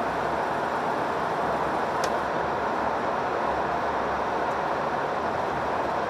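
Steady road and engine noise heard from inside a Hino Profia truck's cab while driving through a tunnel, with a short click about two seconds in.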